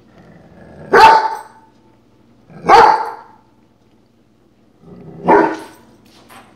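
Airedale terrier barking three times, loud and a second or two apart.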